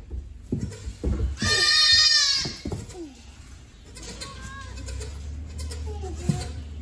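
A baby goat kid bleating: one long loud bleat about a second and a half in, with a few low knocks just before it.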